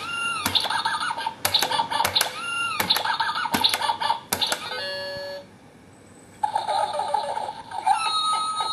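Tabletop electronic whack-a-mouse game: a plastic hammer strikes the pop-up mice again and again, each hit a sharp tap mixed with the toy's electronic beeps and rising boing effects. About five seconds in the hits stop and a short run of beeps plays, then after a second's lull the game's electronic beeping tune starts.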